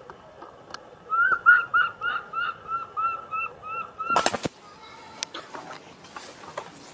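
Baby macaque giving a quick series of about a dozen short, arched coo calls, about four a second, over some three seconds. A brief rustling thump follows just after four seconds in.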